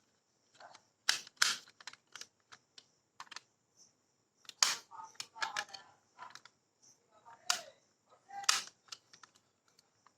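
Marbles clicking and clacking irregularly as they roll and drop along a rain-gutter and wooden-rail marble run, several sharp knocks with a brief ring.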